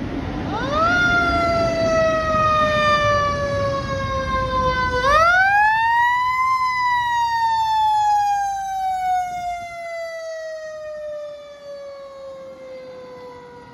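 Fire engine siren wailing: a quick rise in pitch, a slow fall, then a second rise about five seconds in that slowly winds down to the end. A low rumble sits under it in the first few seconds.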